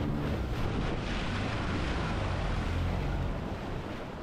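Wind rushing over the microphone with the wash of water and waves, an even noise without any pitched sound.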